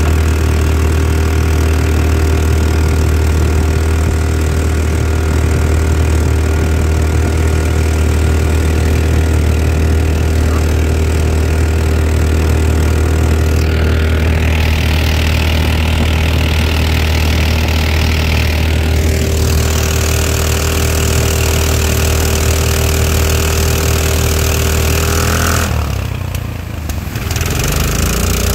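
459cc Harbor Freight engine on a jon boat's surface-drive mud motor running steadily under throttle, pushing the boat along. Near the end it slows briefly, then picks back up.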